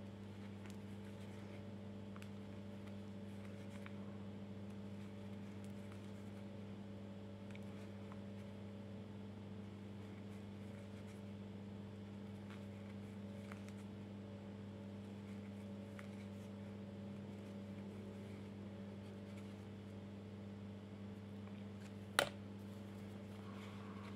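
Steady low electrical hum throughout, with faint scattered ticks from a crochet hook working cotton yarn and one sharp click about 22 seconds in.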